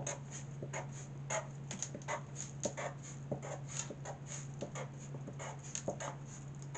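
Black Sharpie marker tapping out short dashes on paper: a quick, irregular run of brief faint scratches, two or three a second, over a faint steady hum.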